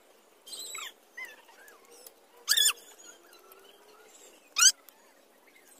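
Short, high-pitched animal calls: a falling call about half a second in, a few faint chirps, and two loud sharp calls about two and a half and four and a half seconds in.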